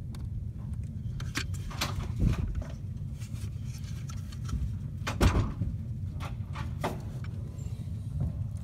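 Handling noise as a plastic-and-metal zone damper actuator is turned over in the hand near the microphone: scattered clicks and rubbing, with two louder knocks about two and five seconds in, over a steady low rumble.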